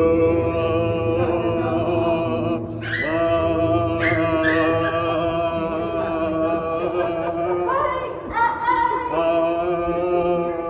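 Singing-like held tones: a steady low note sustained under a higher line that shifts in pitch every second or so, briefly breaking twice.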